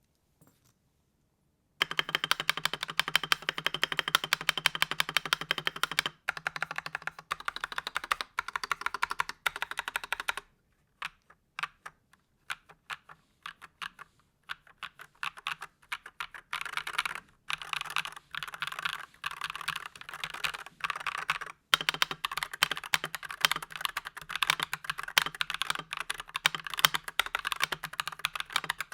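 Fast typing on a stock Akko 5087B Plus mechanical keyboard, with a plastic case and doubleshot ABS keycaps and no sound dampening inside. Silence for the first second or two, then rapid runs of keystrokes, thinning to scattered single presses through the middle before fast typing resumes.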